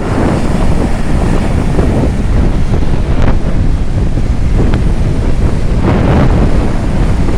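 Strong wind buffeting the microphone over the wash of sea waves, with a few brief surges of the surf.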